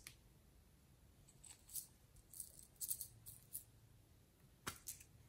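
Faint crinkling and rattling of a small plastic bag of sequins being handled, in short scattered crinkles, with one sharper click near the end.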